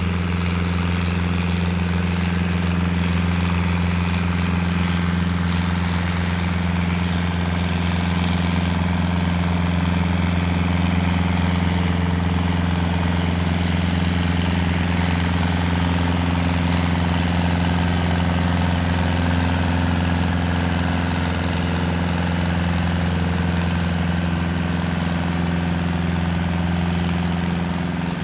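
Deutz tractor's air-cooled diesel engine running at a steady, unchanging pitch under heavy load as it drags a tractor-pulling sled.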